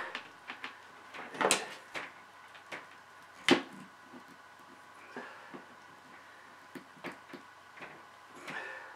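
Hand crimping tool and wires being handled while a butt connector is crimped onto a solar panel's cut lead: scattered small clicks and rustles, with one sharp click about three and a half seconds in.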